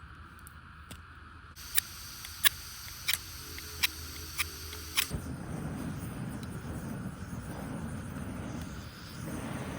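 Single-burner camp stove being lit: gas starts hissing, the igniter clicks six times about half a second apart, then about five seconds in the burner catches and burns steadily with a low rushing noise.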